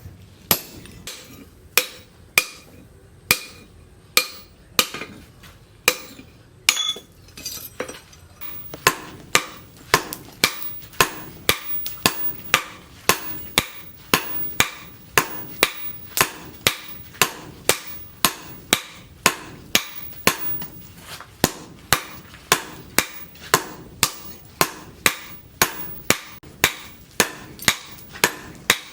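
Blacksmith's hammer striking hot leaf-spring steel on an anvil, each blow ringing. Slow, spaced blows about once a second at first, then from about eight seconds in a steady run of about two blows a second.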